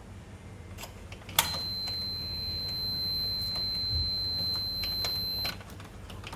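Multimeter continuity beeper giving one steady high beep for about four seconds, starting with a click as the probes touch the washing machine power switch's contacts: the switch is closed and conducting. Small clicks of probe handling around it.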